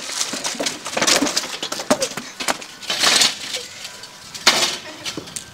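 Bottled drinks, juice boxes and snack packets clattering and tumbling onto artificial grass as a metal-framed glass-top table is tipped over, in several separate bursts.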